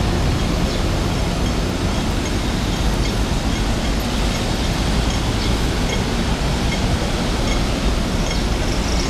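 Steady city street traffic noise, an even rumble of vehicle engines and tyres on the road, heaviest in the low end.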